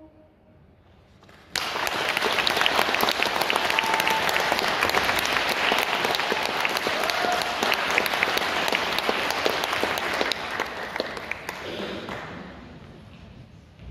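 Audience applause that breaks out suddenly after a second or so of hush, carries on for about ten seconds, then fades away near the end.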